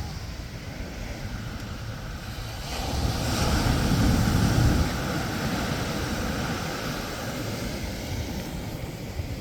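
Surf on a sandy beach: small waves breaking and washing up the sand, with wind on the microphone. One wave swells louder about three seconds in and eases off about two seconds later.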